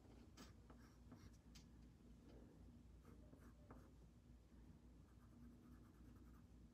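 Faint scratching of a coloured pencil shading on paper, in short irregular strokes.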